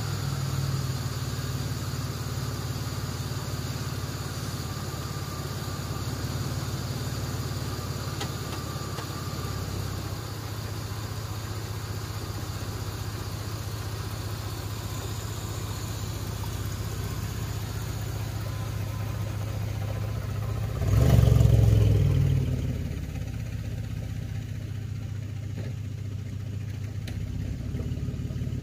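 A 1994 Chevrolet S10 Blazer's 4.3-litre V6, running on a newly replaced CPI spider injector, idles steadily through dual Cherry Bomb mufflers, with one brief rev about three-quarters of the way through.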